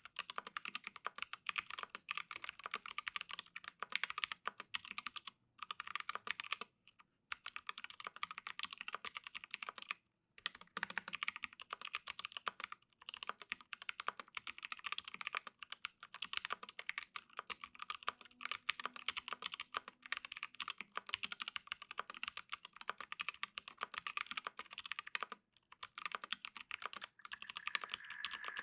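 Continuous typing on an Acrylic Alice mechanical keyboard with lubed T1 switches, an acrylic half plate and PBT keycaps: rapid key clacks with a few brief pauses.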